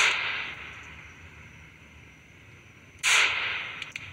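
Two semi-automatic pistol shots about three seconds apart, the first right at the start, each a sharp crack with a short echoing tail.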